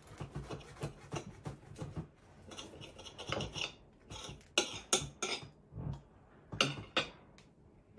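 Table knife sawing through a crisp, pan-grilled aburaage (deep-fried tofu pouch) on a plate, in several bursts of short rasping strokes, with the knife and fork scraping on the plate.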